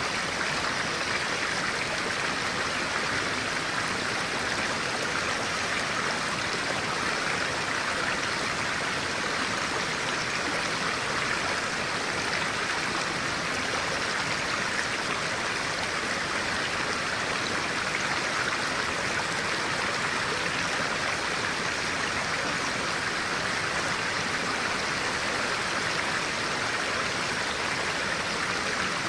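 Clear-water stream flowing steadily, an even rush of water with no breaks or changes.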